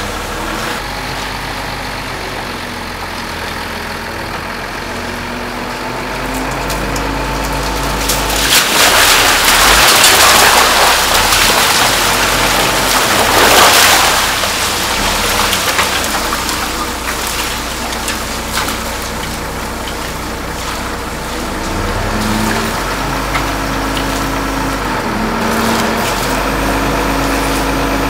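An engine runs steadily, its pitch shifting a few times, under a loud rushing, crunching noise that lasts about five seconds midway as a net load of mullet and crushed ice is dumped out.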